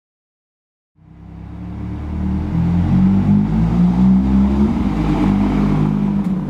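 Ferrari 458 Italia's 4.5-litre V8 running at low revs as the car drives slowly past. The sound comes in about a second in and grows louder as the car approaches, then holds steady.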